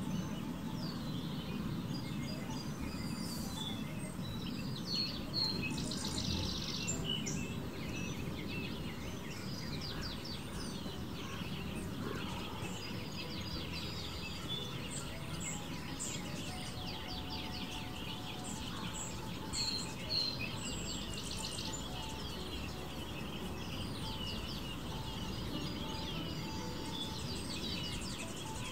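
Small backyard songbirds chirping and twittering, many short calls and trills overlapping throughout, over a steady low background rumble.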